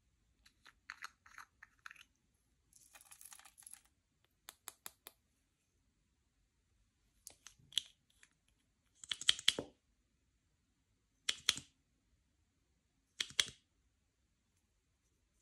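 Hands working slime, making a series of short sticky clicks and crackles, with three louder crackly squishes about two seconds apart in the second half.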